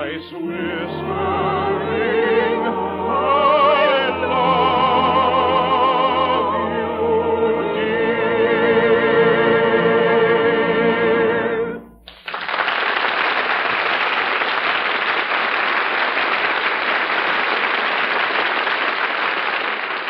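A soprano with wide vibrato sings the closing phrases of an operetta song over an orchestra, ending on a long held high note. About twelve seconds in, after a brief break, a studio audience applauds steadily.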